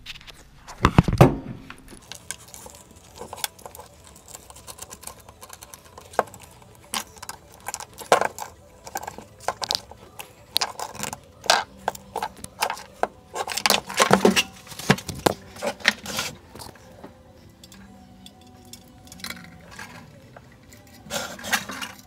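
Small metal parts and tools clinking and knocking as a water-pump pressure switch and its fittings are handled and refitted by hand, with a heavier thump about a second in.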